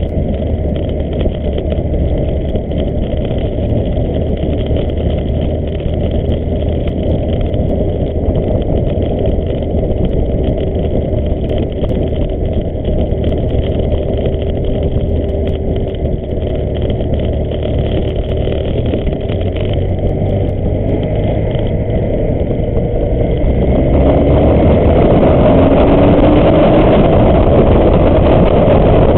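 BMW R1100S motorcycle's boxer twin engine running on the road; near the end it gets louder and its pitch climbs as the bike accelerates.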